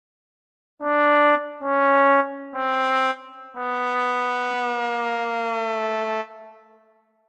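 Sad trombone 'wah-wah-wah-waaah' bad-joke sound effect: three short brass notes each a step lower, then a long fourth note that sags lower still before fading.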